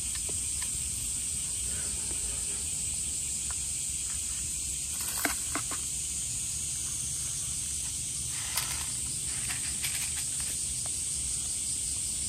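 Steady high-pitched insect chorus, with a few short sharp clicks about five seconds in and again around eight to ten seconds in.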